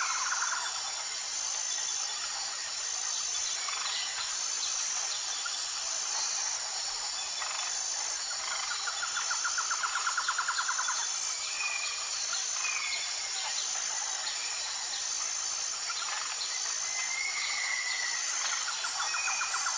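Outdoor nature ambience: a steady high insect hiss, with short bird chirps and three rapid trills.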